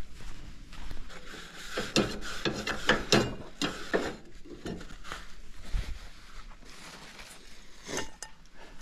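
Irregular clicks, taps and light clatter of cooking gear being handled at a camp stove, busiest in the first half.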